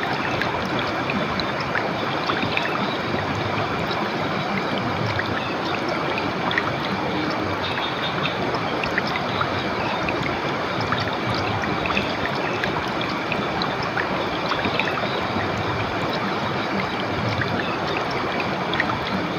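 Clear river water flowing in a steady rush, with small splashes and trickles throughout.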